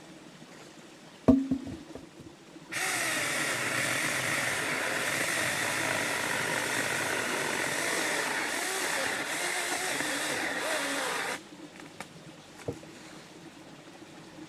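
A knock about a second in. Then a Saker mini battery-powered chainsaw runs for about nine seconds, starting and cutting off suddenly, its pitch wavering as it cuts through wood.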